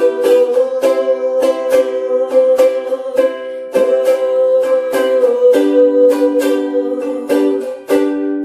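Ukulele strumming hymn chords, about two strums a second, with the chord changing a little past halfway.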